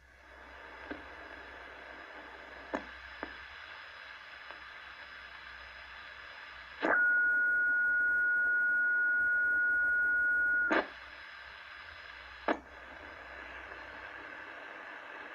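A steady electronic hiss with faint constant tones, broken by a few sharp clicks. In the middle a loud, single high beep holds dead steady for about four seconds, starting and stopping with a click.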